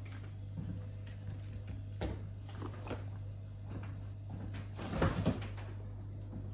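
Groceries being put away: a few scattered knocks and clunks, the loudest cluster about five seconds in, over a steady high-pitched cricket-like trill and a low hum.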